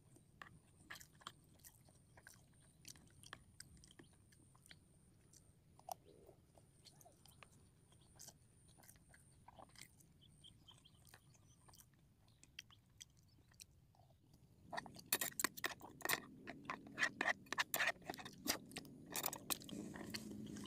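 A person eating a rice dish close to the microphone: faint chewing with small clicks. About three-quarters of the way through it turns louder and busier.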